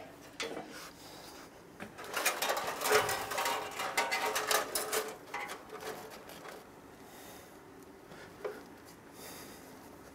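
Bandsaw blade and upper wheel being handled with gloved hands: a few seconds of clattering metal clicks and rattles, busiest from about two to five seconds in, then a few scattered light knocks.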